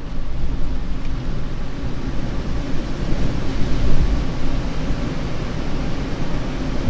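Steady loud rumbling noise, strongest in the low end, holding its level throughout.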